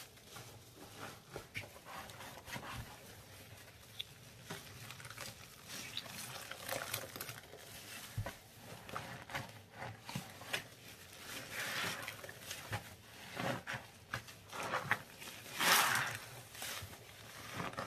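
Gloved hands squeezing and kneading a wet, foamy paste, giving irregular squelches with crackling and popping of bubbles, the loudest squelch about two seconds before the end.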